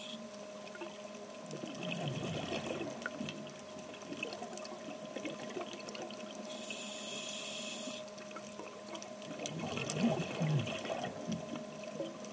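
Scuba diver breathing underwater through a regulator: a hissing breath in about seven seconds in, and bubbling breaths out around two and ten seconds in, over a faint steady hum.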